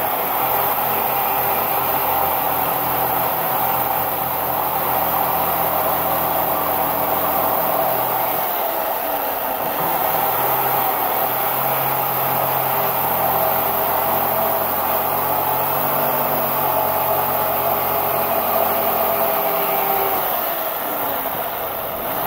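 Corded electric jigsaw running steadily as its blade shaves a blue foam block, its motor whine wavering slightly with the load. It eases off briefly near the end.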